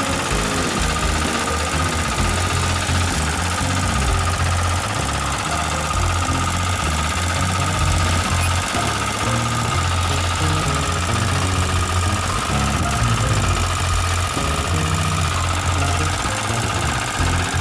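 Single-cylinder diesel engine of a 9 hp walk-behind tractor idling steadily with a knocking beat. It is being kept running because its recoil pull-starter is broken and it could not be restarted.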